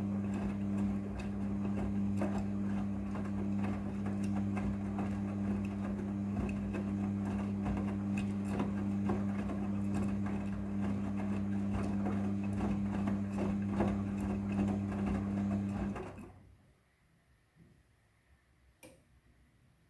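Midea front-loading washing machine running with a steady electric hum and a light rattle. It stops about sixteen seconds in, and a single click comes near the end.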